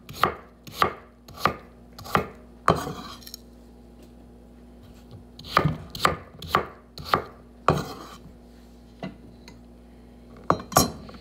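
Kitchen knife chopping vegetables onto a wooden cutting board: sharp knocks about every half second in two runs, with a pause of about two seconds between them, then a single knock and two quick ones near the end.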